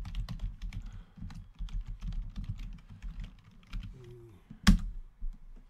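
Typing on a computer keyboard: a quick, uneven run of key clicks, with one much louder key strike about a second before the end.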